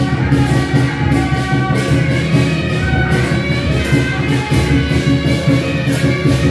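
Music with several instruments and a steady beat.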